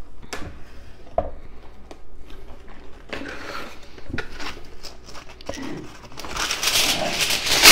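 A kitchen drawer and a box of aluminium foil being handled with scattered clicks and knocks, then a sheet of foil pulled from the roll, crinkling and growing loud near the end.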